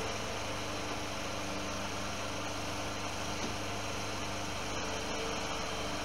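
New Holland skid steer's engine running at a steady speed, with an even, unchanging pitch.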